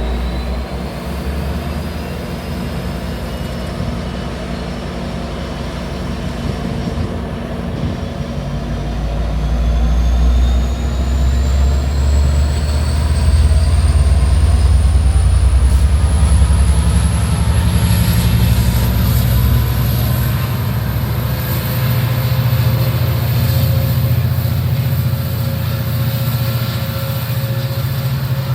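Amtrak F59PHI diesel-electric locomotive pulling a train away, its engine rumbling and growing louder about halfway through, with a thin whine that climbs steadily in pitch as the train gathers speed.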